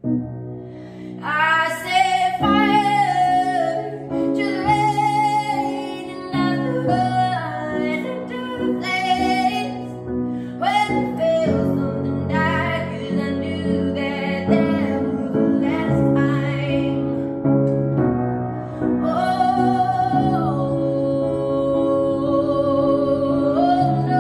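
A young woman singing a slow ballad to her own upright piano accompaniment. Sustained piano chords sound throughout, and the voice comes in over them about a second in.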